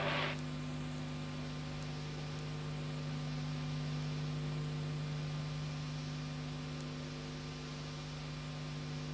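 Steady mains hum with a background hiss: electrical hum on an old broadcast videotape's sound track.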